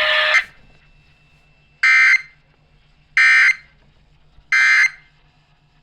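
Emergency Alert System end-of-message signal: three identical short, shrill digital data bursts, each under half a second and about 1.3 s apart. This is the code that marks the end of the alert. Before them, a loud, noisy sound cuts off half a second in.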